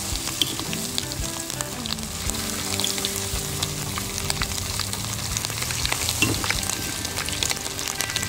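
Deboned chicken feet deep-frying in hot oil, sizzling with a constant stream of small crackles as more pieces are added one by one.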